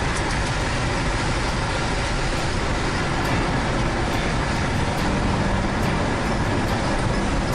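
Steady road and engine noise of a vehicle driving.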